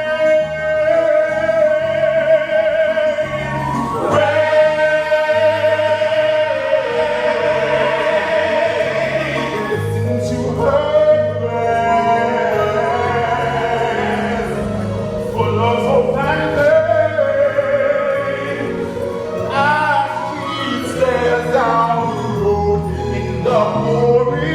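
A song from a stage musical: a sung melody with long held notes and vibrato, in phrases of a few seconds, over a pulsing low instrumental accompaniment.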